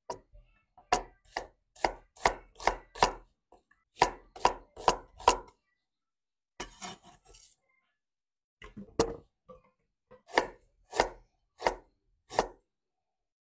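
Knife chopping on a cutting board, sharp separate strokes in short runs with pauses between them, while ingredients are cut for a chilli-based percik sauce.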